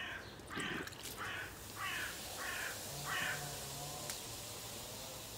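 A bird calling six times in a row, short evenly spaced calls about two a second, stopping a little over three seconds in.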